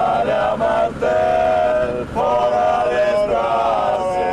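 Male voices singing a song in long held notes, the phrases broken by short pauses about every second.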